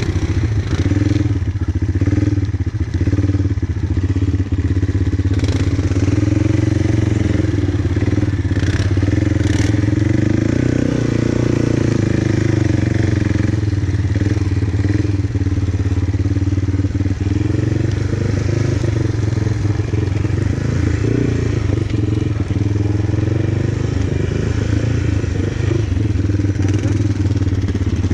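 Quad (ATV) engine running under way offroad, a steady drone whose pitch rises and falls a little with the throttle, with a few brief knocks about five to ten seconds in.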